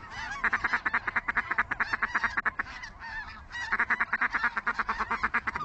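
Geese calling: a fast, even run of honks, about nine a second, in two long stretches with a lull a little after the middle.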